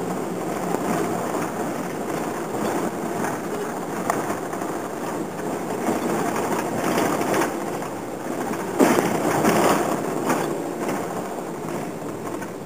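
Road and engine noise inside a moving vehicle climbing a mountain road, a steady rumbling hiss with a couple of sharper thumps from bumps, the loudest about nine seconds in.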